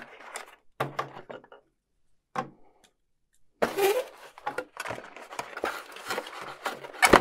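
Hands unpacking a cardboard box: rustling, scraping and light knocks of cardboard and plastic as a plug-in power supply and a coiled cable are lifted out and set down. The sounds pause for about a second in the middle, and there is a sharp knock near the end.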